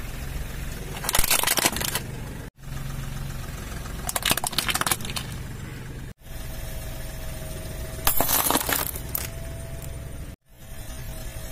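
A car tyre rolling over and crushing small objects on asphalt, three times in quick succession: a plastic toy car cracking, then brittle white pieces crunching, then something shattering into glassy shards. Each crunch lasts about a second, over the steady low rumble of the car.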